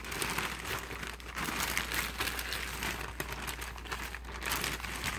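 Plastic bag of spinach leaves crinkling and rustling unevenly as it is handled.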